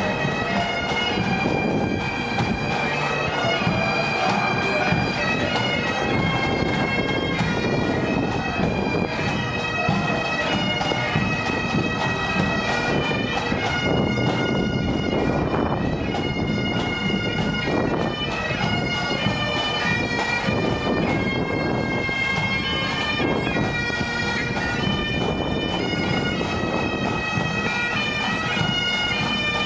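A marching pipe band's bagpipes playing a tune over their steady drones, the melody moving from note to note while the drones hold.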